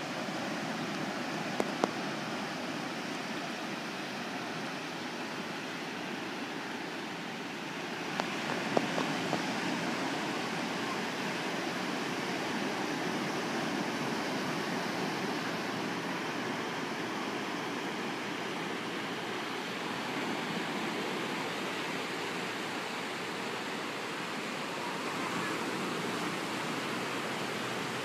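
Surf breaking on a sandy beach: a continuous rushing wash of waves that grows a little louder about eight seconds in. A few brief knocks stand out, two near the start and a small cluster about nine seconds in.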